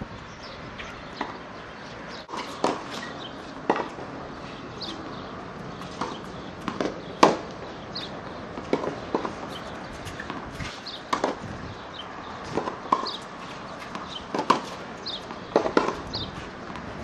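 Tennis balls struck by rackets and bouncing on a hard court during a baseline rally: sharp knocks at irregular intervals, about one a second, the loudest about seven seconds in.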